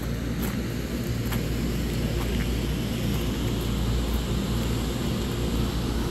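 A steady low mechanical rumble, like a motor running, with a few faint taps over it.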